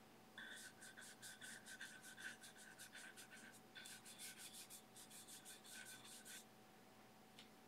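A #4 natural hog-bristle filbert brush scrubbing oil paint onto a smooth gesso-primed aluminium composite panel, in faint, quick, short strokes several times a second. There is a brief pause partway through, and the strokes stop about six seconds in.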